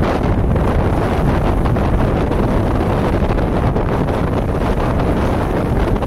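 Strong wind buffeting the microphone, a steady low rush, with the surf of choppy waves breaking against a rocky breakwater beneath it.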